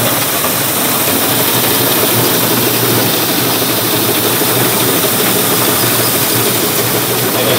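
Farm machine's engine running steadily: a loud, even mechanical noise with a strong hiss in the high range and no change in pace.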